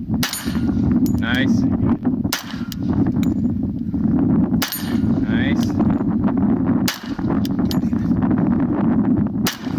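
Gunshots at steel targets: five loud shots spaced about two to two and a half seconds apart, with lighter sharp impacts between them, likely the steel plates ringing when hit.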